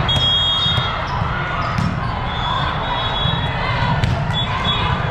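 Busy din of a large hall full of volleyball courts: volleyballs being hit and bouncing on the hard floor in scattered knocks, with voices in the background and a few short high-pitched tones.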